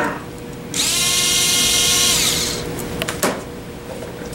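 Cordless power screwdriver spinning out a carburetor top-cover screw, running for about two seconds, spinning up at the start and winding down as it stops. A sharp click follows about three seconds in.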